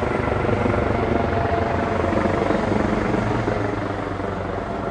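Helicopter running steadily: a continuous drone of rotor and engine, the live race-broadcast sound above a bicycle peloton.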